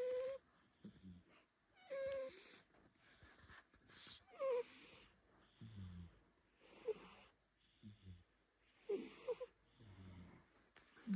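A cat snoring: about five breaths, each pairing a high whistling wheeze with a lower snore, one breath every two seconds or so.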